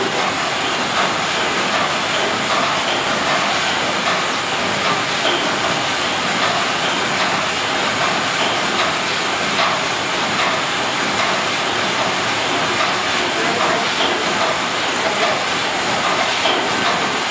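Steam tug Cervia's reciprocating steam engine running steadily on steam, a dense, even mechanical clatter and hiss from its moving rods and valve gear, on its first run under steam in 30 years.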